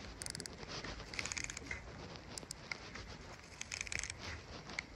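Small, irregular clicks and handling ticks from a round baitcasting reel marked DC 100HG as it is adjusted by hand, with a quick run of clicks near the start. The reel's brake setting is being tuned.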